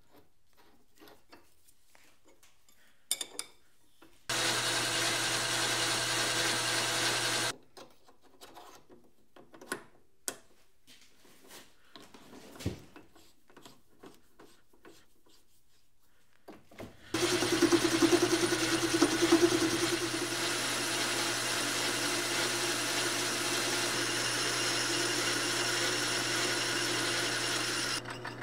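Metal lathe running steadily during single-point thread cutting, in two runs: a short one of about three seconds and a longer one of about eleven seconds near the end, each starting and stopping abruptly. Between the runs there are small clicks and knocks of a threaded chuck being handled and screwed onto the spindle.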